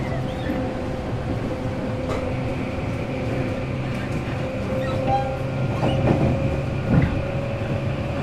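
Tobu 8000 series electric train running, heard inside motor car MoHa 8276: a steady low hum from the motors and gears, and a whine that slowly rises in pitch. Short knocks from the wheels come now and then, the loudest a little before the end.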